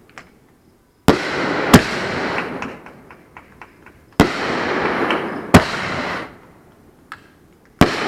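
Consumer firework cake firing its grand finale shots: a string of sharp bangs, roughly five, each followed by a second or so of hissing that fades, with scattered small pops in between.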